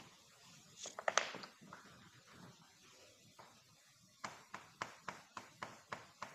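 Chalk on a chalkboard, writing: a few sharp clicks about a second in, then a quick run of about a dozen short taps as letters are written, near the end.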